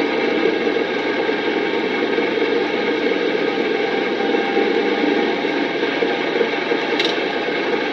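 5-ton diesel truck engine running steadily, with a short click about seven seconds in.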